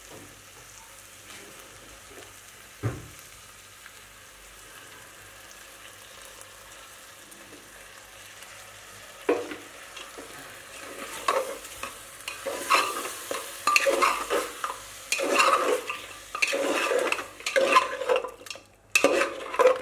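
Mutton frying in an open aluminium pressure cooker, first a faint steady sizzle with a single knock about three seconds in. From about halfway, a metal spoon stirs the meat and tomato gravy, scraping irregularly against the pot.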